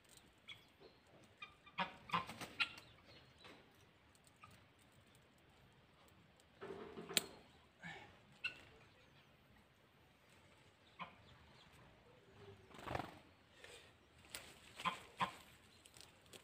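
Hens clucking on and off in short calls, with a sharp click about seven seconds in.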